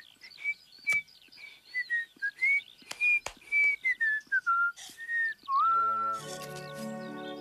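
A man whistling a meandering tune, the notes sliding up and down, with a few sharp clicks among them. About five and a half seconds in, the whistling gives way to music: a held note over a low accompaniment.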